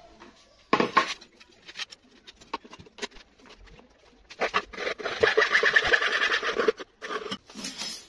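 A wooden broom handle being sawn through by hand with a metal saw blade: a few scattered knocks and scrapes, then a run of fast rasping strokes for about two seconds starting about halfway through, and a short burst more near the end.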